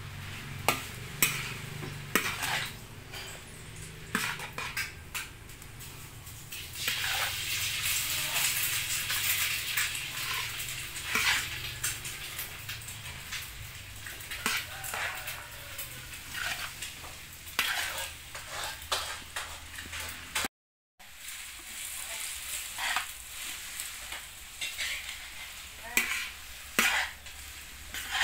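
Metal utensils clinking and scraping against a steel wok as noodles and greens are stir-fried, over a sizzling hiss that is thickest in the middle stretch. The sound breaks off briefly about two-thirds of the way through.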